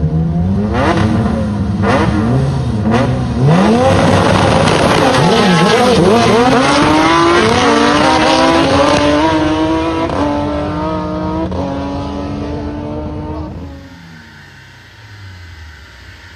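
Rotary-engined car on a chassis dyno: a few quick revs with sharp cracks between them, then a loud full-throttle pull with the engine pitch climbing and stepping at gear changes. About fourteen seconds in the throttle closes and the engine winds down with a falling tone.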